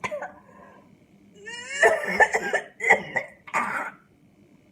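A woman gagging and coughing from nausea: a short sound at the start, then from about a second and a half in a rising retch followed by three harsh coughs, the last ending about four seconds in.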